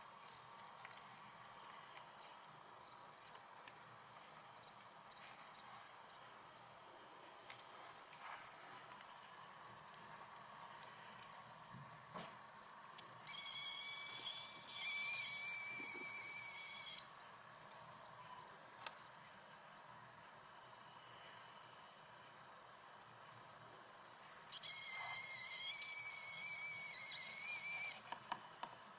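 A cricket chirping in short, high-pitched chirps at about two a second, with brief pauses. Twice a louder, denser buzzing trill joins in for a few seconds each time and cuts off abruptly.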